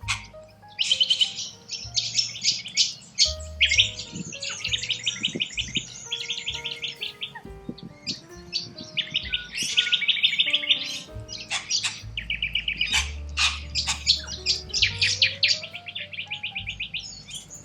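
Corella cockatoos calling in rapid chattering trains of high notes, almost without pause, over background music with a slow, stepping bass line.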